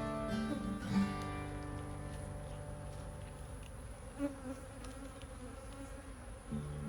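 Acoustic guitar music that thins out after about a second, leaving honeybees buzzing through the middle, with the guitar coming back in near the end.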